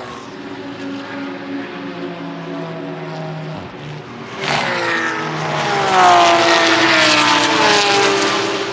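A steady engine drone, then about four seconds in a racing car's engine comes in loud at high revs and passes close by, its note falling steadily in pitch as it goes past.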